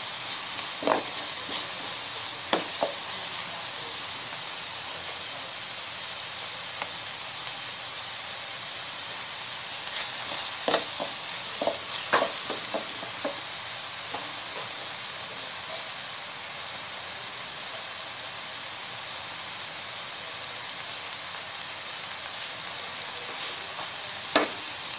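Chopped onions sautéing in oil in a nonstick grill pan, a steady sizzle, with a wooden spatula now and then knocking and scraping against the pan as they are stirred.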